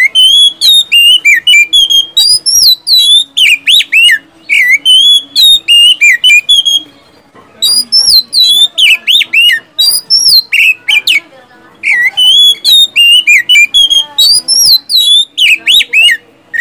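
Oriental magpie-robin (kacer) singing loudly in full voice: rapid whistled phrases mixed with sharp, quick-fire note series, broken by brief pauses.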